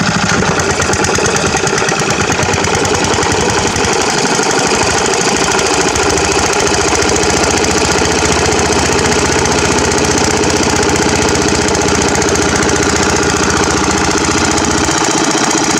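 Homemade boat motor built from a 12.5 hp Briggs & Stratton single-cylinder lawnmower engine, running steadily under load as it pushes the boat. It is swinging a bigger propeller, which the owner thinks may be a little much for this engine.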